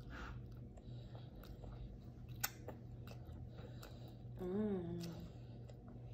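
A plastic spoon clicking and scraping in a plastic bowl of rice, with soft chewing, over a low steady hum. About four and a half seconds in comes one short, wavering hummed voice sound.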